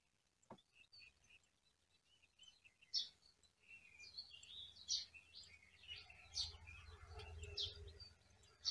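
Faint birds chirping, many short calls. A low rumble comes in about six seconds in.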